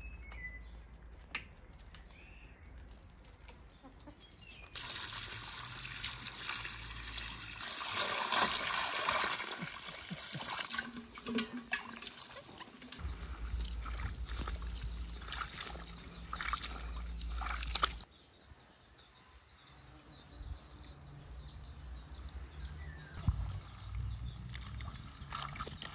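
Water splashing and trickling as leafy greens are washed by hand in a metal basin. It is loudest for several seconds in the middle and cuts off suddenly.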